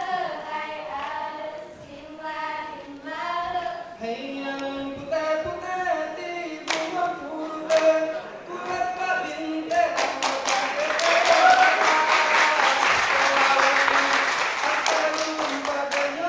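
A group of voices singing a Rampai Aceh dance song a cappella, in held notes that step up and down in pitch. About seven seconds in, sharp claps come in, and from about ten seconds in they turn into rapid, dense clapping that is louder than the singing and stops near the end.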